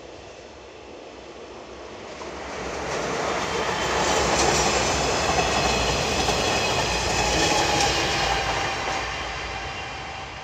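Push-pull train of DE10 diesel-hydraulic locomotives and 50-series passenger coaches passing: the engine and wheel noise builds, stays at its loudest through the middle as the coaches go by, then fades as the train draws away, with a faint high whine at its loudest.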